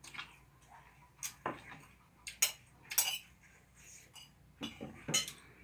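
Eating utensils clinking and knocking against a dish, about eight sharp irregular clinks, the loudest near the middle.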